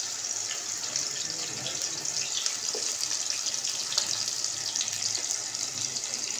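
Sliced onion and cumin frying in hot oil in a pan: a steady sizzle with scattered crackles as the onion browns.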